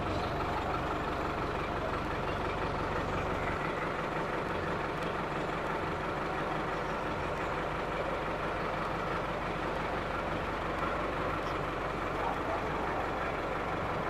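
Indo Farm tractor's engine running steadily while it powers the hydraulics of the rig's stabiliser jacks; a low hum drops away about three and a half seconds in.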